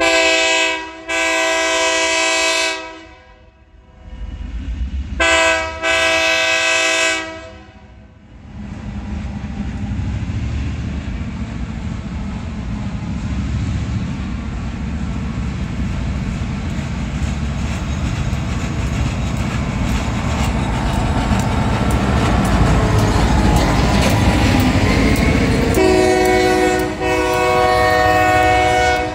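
Multi-note diesel locomotive horn sounds four blasts, two short-and-long pairs. Then the EMD GP38-rebuilt locomotive's two-stroke V16 diesel builds to a loud rumble as it passes, with the rail cars clattering. The horn sounds twice more near the end.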